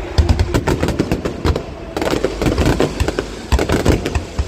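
Fireworks going off in quick succession: many overlapping bangs and sharp crackles with deep booms beneath.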